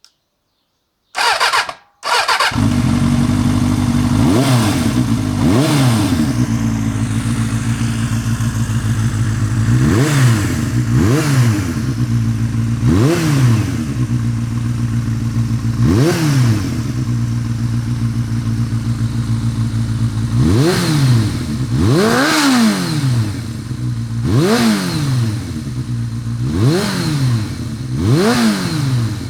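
1991 Suzuki Bandit 400 V's inline-four engine, breathing through a Yoshimura Drag Cyclone aftermarket exhaust, starts about two seconds in, then idles steadily while the throttle is blipped again and again, each rev rising and falling quickly.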